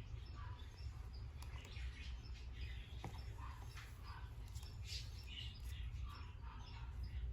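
Kittens playing quietly: soft scuffling and scratching on bedding, with scattered faint short high chirps, over a steady low hum.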